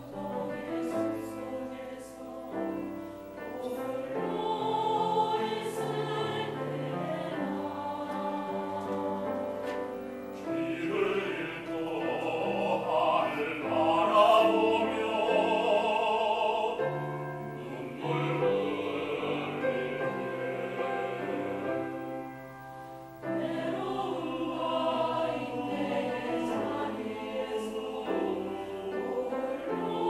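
A mixed church choir singing a Korean hymn in harmony, in sustained phrases, with a brief break between phrases about two-thirds of the way through.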